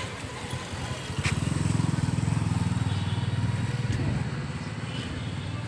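A motor vehicle passing on the road. Its low, rapidly pulsing engine note swells about a second in and fades away after about four seconds.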